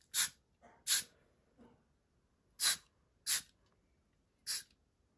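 Can of compressed air fired through its straw nozzle in about five short, sharp blasts of hiss at uneven intervals, blowing across wet watercolour paint to splatter it.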